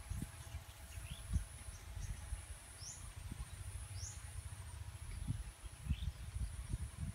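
Wind buffeting the microphone in irregular low gusts, under a steady high insect buzz that drops out briefly now and then. Four short, rising bird chirps come through, about a second and a half apart.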